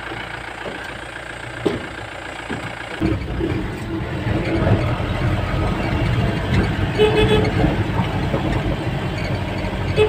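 A vehicle's engine running steadily, then getting louder about three seconds in as the vehicle pulls away and drives on. A short horn toot sounds about seven seconds in.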